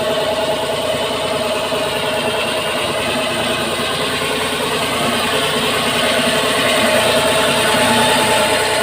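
Engine-driven drilling rig running steadily while boring with little water, a constant mechanical drone that grows slightly louder over the last few seconds.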